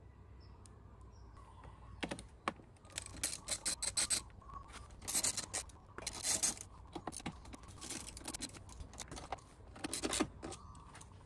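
Socket ratchet with an extension clicking in quick bursts as bolts are tightened into a scooter's plastic floorboard. The clicking starts about two seconds in and stops near the end, with faint bird chirps before it starts.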